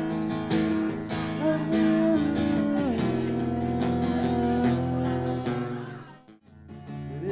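Acoustic guitar strumming chords in a live acoustic performance. The sound drops away sharply about six seconds in, then the strumming starts again just before the end.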